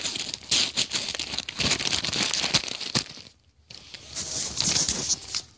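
Paper mailing package being torn open and crinkled by hand, in two stretches with a brief pause a little past halfway.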